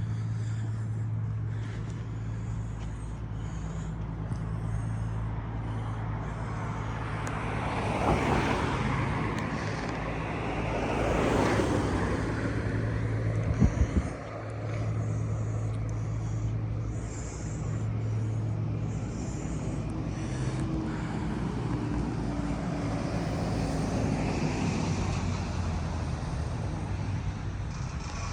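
Road traffic going by, with two vehicles passing about eight and eleven seconds in and a steady low hum underneath. A few sharp knocks sound about two-thirds of the way through.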